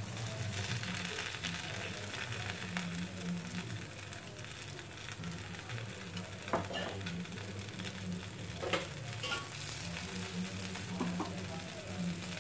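Egg paniyaram batter sizzling steadily in ghee in the wells of a paniyaram pan. A few short scrapes of the tool turning the balls over come in the second half.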